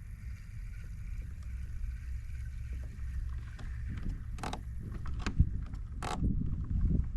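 Low wind rumble with water and gear sounds around a fishing kayak, then several short knocks and splashes from about four seconds in, the sharpest just after five seconds.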